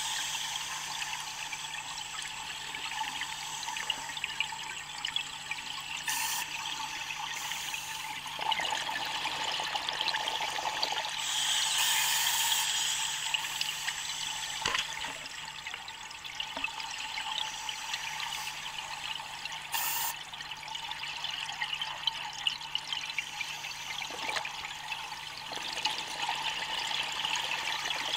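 Underwater scuba diving sound: a steady hiss of the diver's regulator breathing, with louder surges of exhaust bubbles a few times.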